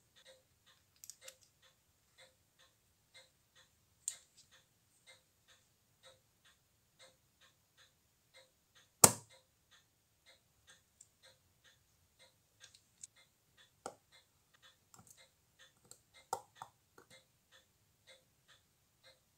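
Faint, even ticking of a running mechanical watch movement, several beats a second. Over it come a few light clicks of steel tools on the movement and one sharp click about nine seconds in, as a hand press is pushed down onto the movement.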